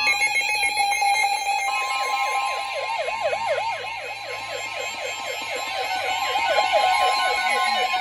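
NOAA Weather Radio tornado warning alert. About two seconds in, the steady 1050 Hz warning alarm tone starts, and a weather radio's warbling siren alarm wails over it several times a second.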